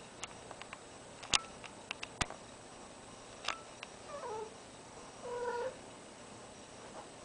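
A few sharp clicks, then a female cat in heat gives two short calls about four and five seconds in, the first falling in pitch, the second held steady: the calling of a cat in heat.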